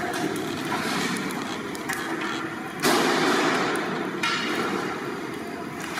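Loud, steady rushing noise with no clear pitch, jumping up abruptly about three seconds in.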